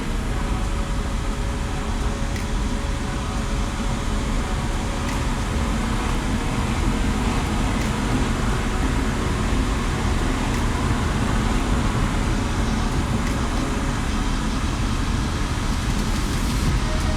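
2016 Lamborghini Huracan's 5.2-litre V10 running at a steady cruise, with tyre and road noise and a deep, even rumble and no revving.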